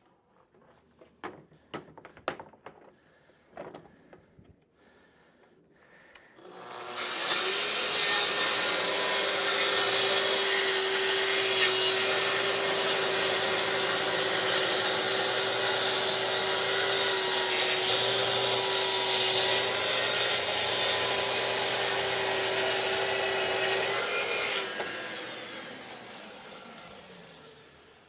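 A few light clicks, then a circular saw running along a guide track starts about six seconds in and cuts through a wooden shelf panel with a steady whine for roughly seventeen seconds. Near the end the motor is switched off and winds down.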